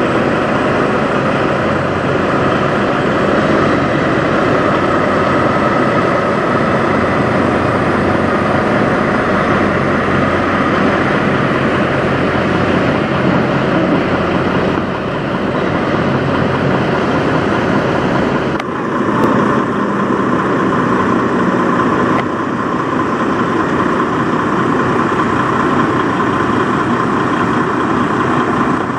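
Kenworth semi trucks' diesel engines running steadily at low speed. About two-thirds of the way through, the sound shifts abruptly to another truck's engine.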